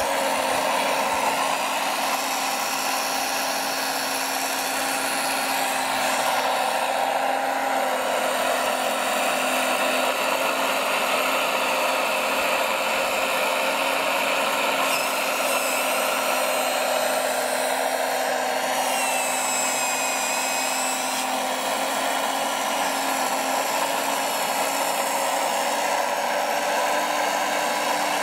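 Electric saw-head attachment on a radio-controlled Liebherr 956 excavator model, running steadily and cutting into a log, with the model's motors whining underneath.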